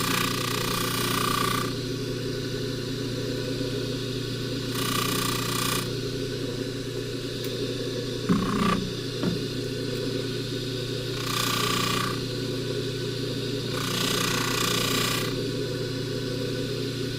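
Jewelry buffing machine running steadily, with a hiss each time the silver box chain is pressed against the spinning buffing wheel, four times, and a couple of knocks just past the middle.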